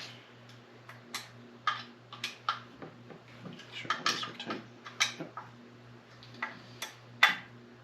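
Plastic covers and small parts of a Husqvarna 372XP chainsaw clicking and tapping as they are fitted back on by hand, about a dozen irregular sharp clicks over a steady low hum.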